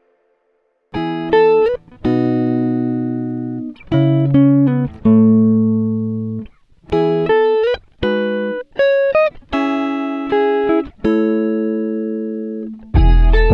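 Background music: a plucked guitar melody of separate notes that start sharply and fade, after about a second of silence. Deep bass joins near the end.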